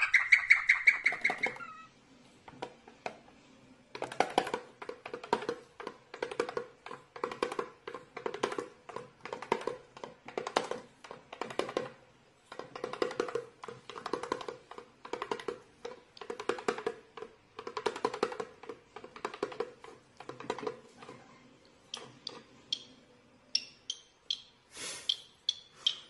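A cockatiel gives a short pitched whistle at the start. Then music with a quick, even beat and a held low note runs for about seventeen seconds. Short, high cockatiel chirps come near the end.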